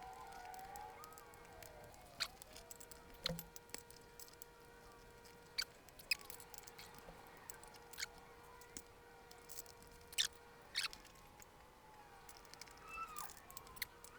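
Faint squeaks of rubber and scattered light clicks and taps as a motorcycle inner tube and tire are worked by hand on the rim, pushing the tube's valve stem down into its hole. A faint steady hum runs underneath.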